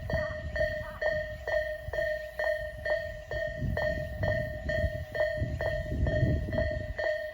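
Japanese railway crossing's electronic warning bell, of the Isesaki type, ringing in an even two-tone ding at about two strikes a second. A train's low rumble swells and fades under it in the second half.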